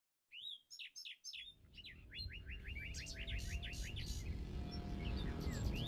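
Birds chirping and singing in short sweeping notes, with a quick run of repeated chirps in the middle, over a low rumbling noise that grows steadily louder.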